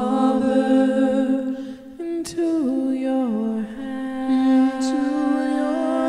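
Wordless vocal music: humming on long held notes over a sustained drone, the melody sliding down in steps about two seconds in and then holding.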